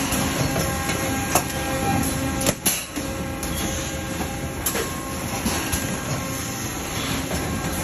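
Factory machinery running with a steady mechanical din and faint steady hum, broken by a few sharp knocks and clanks, two of them close together about two and a half seconds in.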